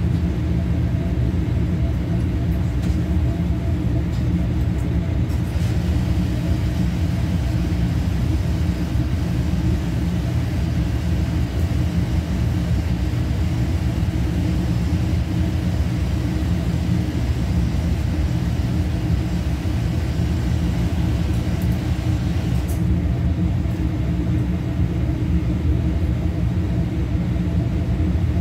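Steady, loud machinery hum and rumble with several steady low tones, typical of equipment running in a commercial kitchen.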